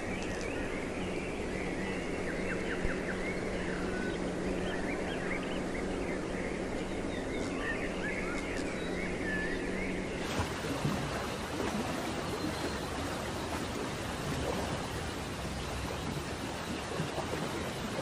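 Birds chirping with short, quick call notes over a steady low hum. About ten seconds in, this cuts abruptly to a steady rush of flowing water with no birdsong.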